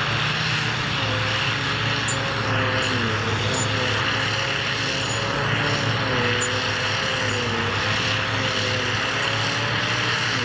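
Tractor engine under load driving a trailed forage harvester, with a steady whine from the harvester's cutting and blowing rotor as grass is chopped and blown into the trailer. The whine dips and recovers in pitch every second or two as the load changes.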